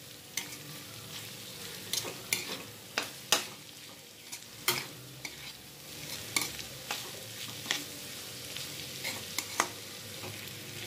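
Slotted steel spatula scraping and knocking against a wok as it stirs a dry ground-bean and chili mixture, in irregular strokes one or two a second. A low steady frying hiss runs underneath.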